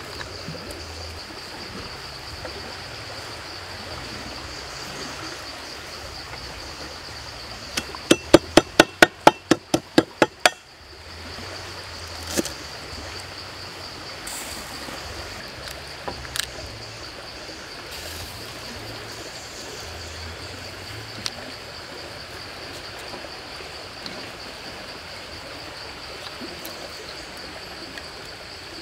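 A kitchen knife chopping herbs on a wooden cutting board: a quick run of about ten sharp chops, roughly four a second, then a few single knocks. A steady high insect drone continues underneath.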